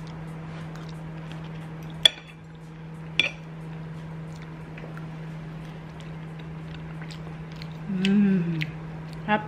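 Metal knife and fork clinking and scraping on a ceramic plate while cutting baked salmon, with two sharp clinks about two and three seconds in. Near the end a short hummed voice sound.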